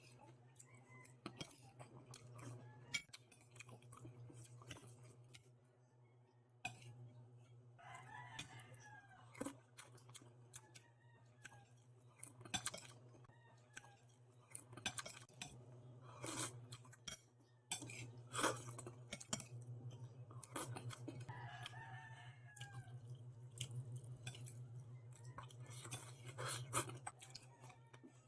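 Mukbang eating sounds: chewing and spoon-and-bowl clicks, over a steady low hum. A rooster crows twice in the background, about a third of the way in and again past the middle.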